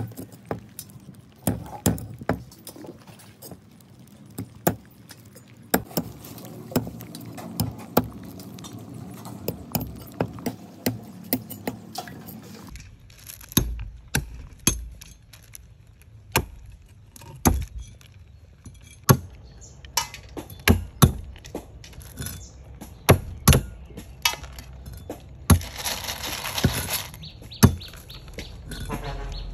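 Hard shells of live horn snails clicking and clinking against each other and the plastic basin as they crawl and tumble, in scattered sharp clicks, some louder than others.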